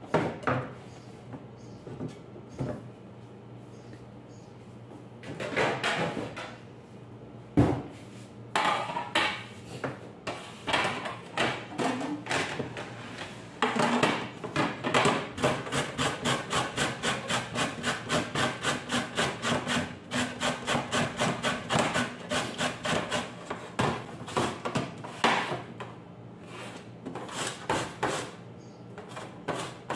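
A carrot being grated on a stainless steel box grater: rasping scrapes in short irregular runs, then a steady run of about two strokes a second. A single sharp knock about a quarter of the way in.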